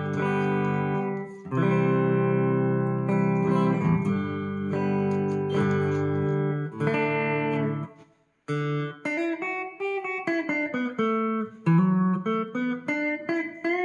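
Solid-body electric guitar played clean through a Line 6 modeler's '58 Fender Bassman amp model, with the distortion stomp switched out. Chords are strummed and left to ring for about eight seconds, then after a brief break single-note runs follow.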